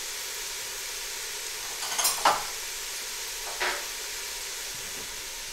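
Sliced onions frying golden brown in oil in a stainless steel pot, a steady sizzle. Brief metal clinks about two seconds in and again past the middle.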